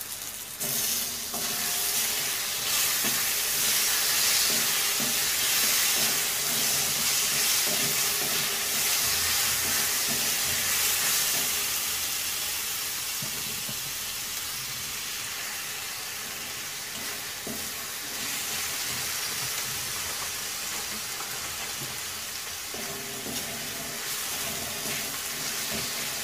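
Chopped tomatoes sizzling in hot oil with onion and ginger-garlic paste in a kadai, stirred with a spatula. The sizzle jumps up about a second in as the tomatoes hit the oil, then slowly eases off over the second half.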